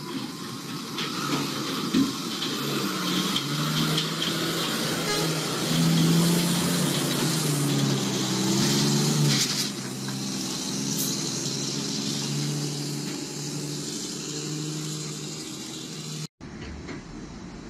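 A heavy vehicle's engine running, its pitch stepping up and down, cutting off abruptly near the end.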